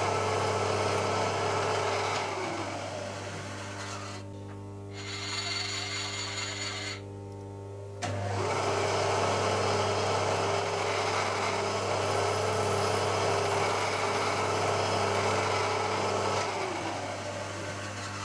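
Milling machine spindle running with an edge finder in it during edge finding. It is switched off about two seconds in and winds down with a falling pitch. It starts again abruptly about eight seconds in, runs steadily, and winds down again near the end.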